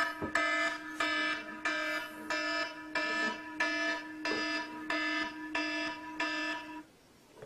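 Electronic alarm beeping in quick repeated pulses, a little under two a second, over a steady low tone. It cuts off suddenly near the end, as if switched off.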